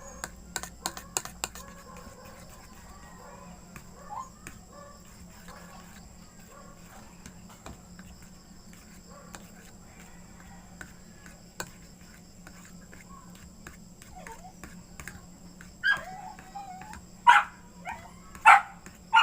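A dog barking: four loud, short barks in the last few seconds, with fainter yips before them, over a steady low hum.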